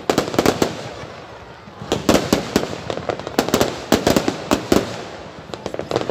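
Aerial fireworks bursting overhead in quick clusters of sharp bangs and pops, with brief lulls between the volleys.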